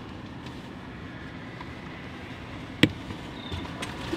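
Steady low rumbling outdoor noise with a single sharp knock about three seconds in, followed by a brief high chirp.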